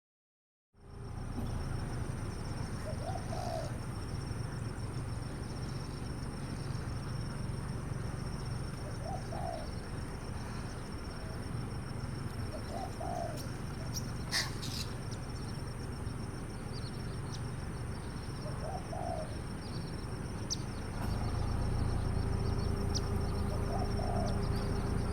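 A bird cooing: five short, low calls spaced about five seconds apart over a steady background hiss, with a brief click midway.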